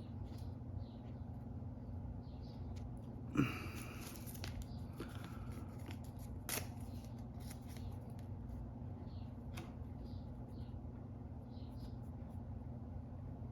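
Quiet handling noises on a workbench: light clicks and rustles over a steady low hum, with a louder brief rustle and click about three and a half seconds in and a sharp click about six and a half seconds in.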